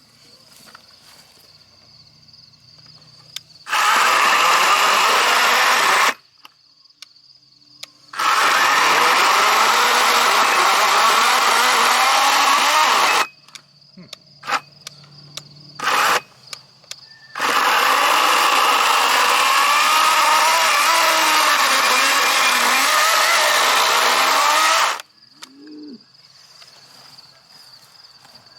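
Battery-powered electric chainsaw (Wild Badger 40-volt, 16-inch) cutting into a large solid log through a hard knotted crotch, in three runs that start and stop abruptly as the trigger is pulled and released, the motor's pitch wavering under load; it cuts through easily.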